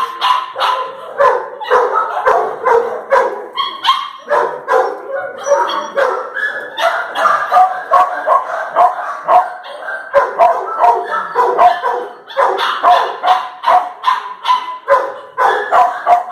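Dogs barking back and forth in rapid, repeated barks, about three a second, with short pauses.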